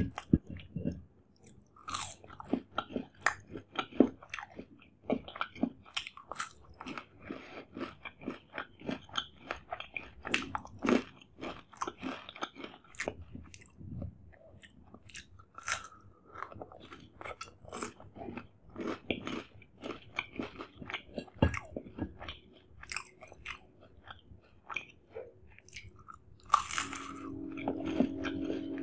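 Close-up crunching bites and wet chewing of syrup-soaked shahi jilapi (jalebi), eaten by hand, in an irregular run of crisp crackles and smacks. About two seconds before the end a steady low hum comes in.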